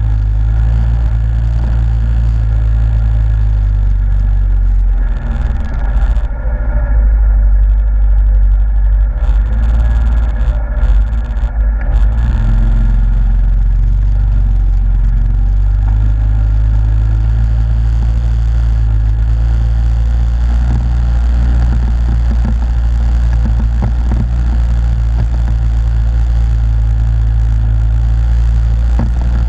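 Yamaha Grizzly ATV engine running under way through mud, a loud, steady drone. From about five to twelve seconds in the sound turns uneven and choppy before settling back to a steady run.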